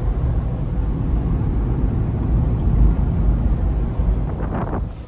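Steady low road and wind rumble inside the cabin of a moving SUV driving in a strong crosswind. It drops away abruptly just before the end.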